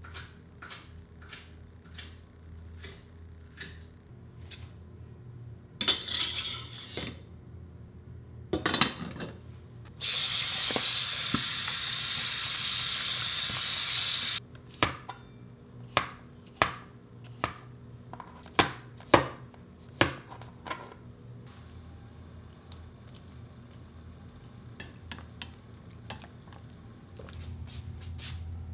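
Kitchen work: scattered clinks and knocks of utensils and dishes, then about ten seconds in a tap runs for about four seconds onto button mushrooms in a stainless steel bowl, followed by a run of sharp, loud knocks that give way to lighter clicks.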